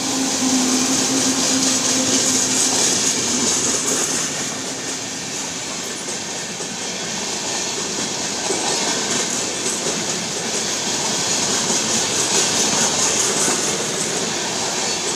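Electric-hauled Indian Railways express train passing at speed: a steady rush of wheels on rail with a clickety-clack from the coaches. A hum from the electric locomotive fades out in the first few seconds as it goes by.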